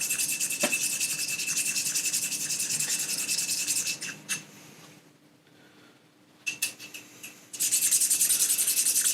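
A small steel valve shim being rubbed back and forth by hand on a whetstone, a fast rhythmic scraping. It stops for a few seconds in the middle and starts again near the end.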